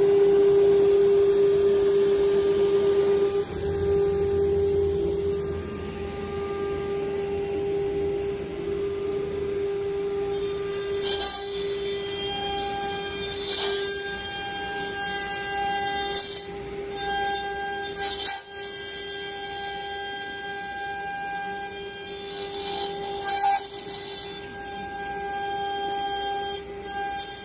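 Axiom CNC router's spindle running with a steady whine while its small end mill carves letters into a wooden sign. From about ten seconds in, sharp bursts of cutting noise come and go as the bit bites into the wood.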